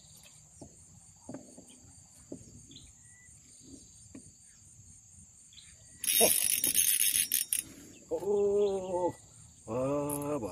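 Steady high-pitched insect trill from the riverbank vegetation, with faint ticks. About six seconds in comes a loud rustling, scraping burst lasting over a second, followed near the end by two short, pitched, droning sounds about a second each as the rod is lifted and its spinning reel handled.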